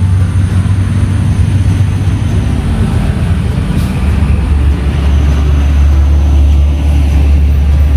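Loud, steady low rumble of road traffic from a heavy vehicle running close by, settling to a deeper, steadier note about five seconds in.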